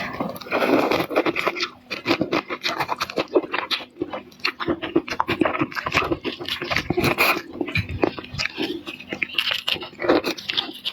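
Close-up mouth sounds of someone eating shrimp: wet chewing with many quick crunches and clicks in an irregular run.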